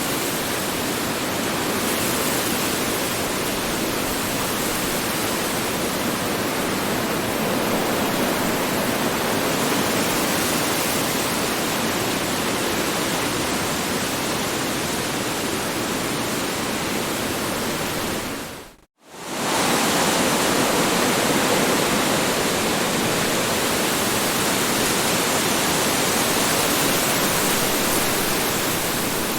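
Strong wind blowing steadily, a dense, even rush of noise. About two-thirds of the way through it fades out to silence for a split second and comes straight back at full strength.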